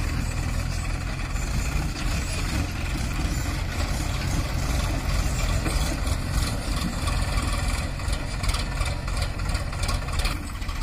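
Sonalika DI 47 RX tractor's three-cylinder diesel engine running steadily as it pulls a fully loaded soil trolley across the field.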